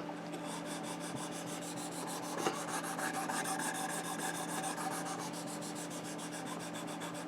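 A knife blade being stroked back and forth along the stone of a Work Sharp Precision Adjust guided sharpener: a steady, rhythmic rasping of steel on abrasive, with a faint low hum underneath.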